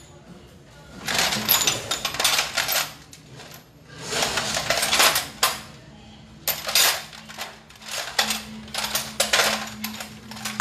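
Steel sockets and extensions clinking and rattling against each other and a metal bucket as a hand rummages through them, in several bursts.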